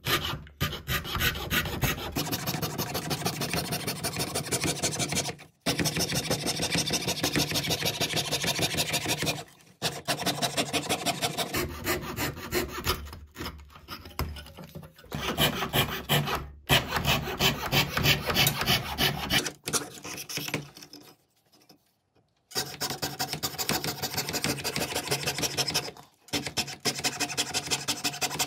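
A wooden ship-model part being abraded by hand with rapid back-and-forth strokes, in runs of several seconds broken by short pauses, with a longer pause about twenty seconds in.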